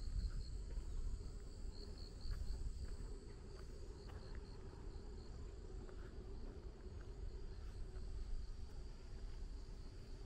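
Insects trilling in a steady high, pulsing chirr, over a steady low rumble.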